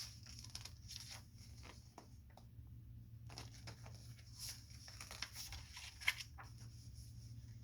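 Faint handling noise: scattered soft rustles and small clicks, over a low steady hum.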